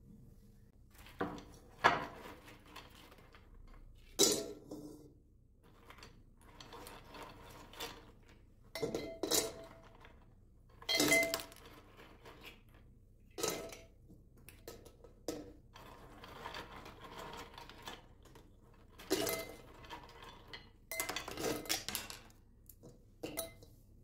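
In-shell almonds dropped by the handful into a glass footed jar, clattering and clinking against the glass in irregular bursts, with softer rattling of nuts being gathered up between.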